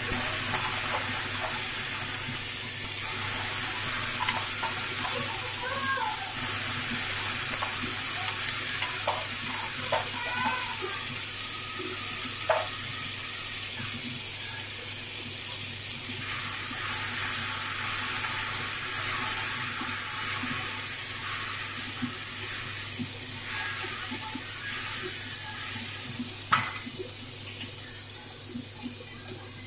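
Wet tomato, green chili and ginger paste sizzling in hot mustard oil in a stainless steel kadai: a steady frying hiss that eases off near the end. A few sharp clinks, one about halfway and one near the end, as the paste is stirred in the pan.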